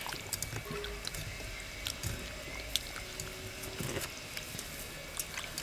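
Water splashing and dripping, with scattered small clicks and knocks.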